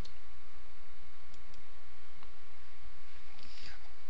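A single computer mouse click at the start, then a steady low hum with a few faint ticks.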